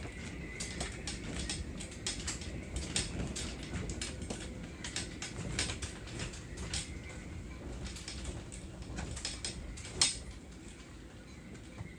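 Irregular light clicks and ticks over a low rumble, with one sharper knock about ten seconds in.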